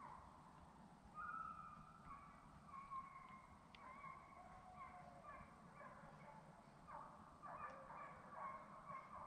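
A pack of deer hounds baying faintly, many long drawn-out bawls overlapping, heaviest from about a second in and again near the end: the pack running a deer.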